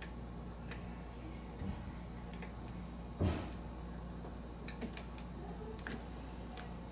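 Lock pick and tension wrench working the pin stack of an American 5200 series padlock during single-pin picking: scattered light metallic ticks, bunched up about five and six seconds in, with one duller knock just after three seconds. A steady low electrical hum runs underneath.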